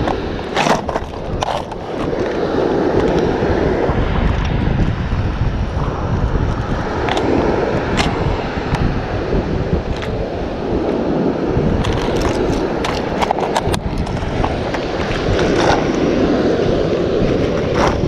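Wind rushing over the microphone, swelling every few seconds, with sharp plastic clicks and clacks as a clear plastic lure box is handled and opened and the hard plastic lures inside knock about, a burst of them about three quarters of the way through.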